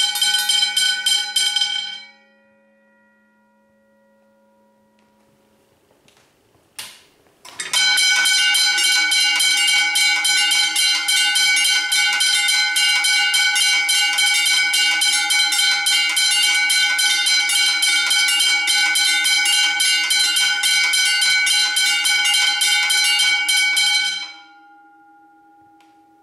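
Several electric railway level-crossing bells ringing together in rapid strokes. They stop about two seconds in and the tone dies away. After a couple of clicks they start again, ring for about sixteen seconds, then stop with the last tone hanging on.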